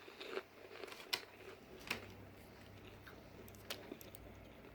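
Faint chewing of a crisp snack, with a few sharp crunches spaced about a second apart. A faint low hum comes in about two seconds in.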